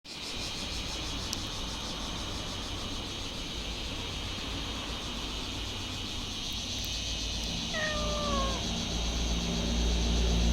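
A domestic cat meows once, a short call that falls in pitch, about eight seconds in, over a steady background hum and a low rumble that grows louder near the end.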